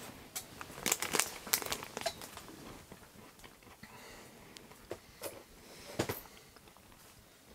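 Crinkling and rustling handling noise: a dense run of sharp crackles in the first two seconds, then scattered clicks, with two louder ones near the end.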